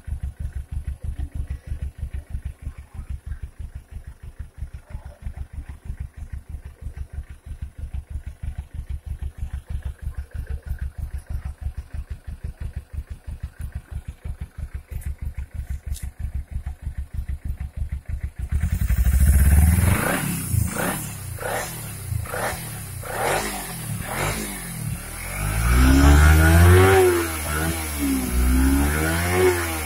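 Kawasaki motorcycle's four-stroke engine idling with an even, steady beat, then revved up and down repeatedly from a little past halfway. At around 35,000 km, and after the owner adjusted the cam chain tensioner himself, the engine runs calm and smooth.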